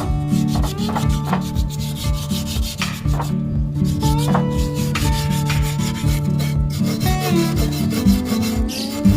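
Background music with a steady beat and held bass notes: an instrumental stretch of a pop song.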